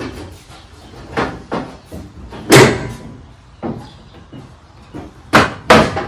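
Irregular hollow knocks and bangs of the steel inner fender well being pushed and wrestled up inside a 1968 Pontiac Firebird's front fender. The loudest bang comes about two and a half seconds in, and two more come close together near the end.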